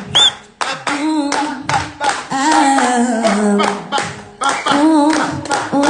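Audience hand-clapping a salsa clave rhythm while a woman sings a melody over it a cappella, with no backing track.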